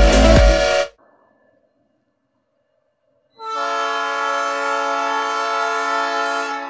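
Electronic dance music cuts off about a second in. After a short silence, a locomotive horn sounds one long, steady chord of several notes for about three seconds: the warning blown by an approaching train at a level crossing.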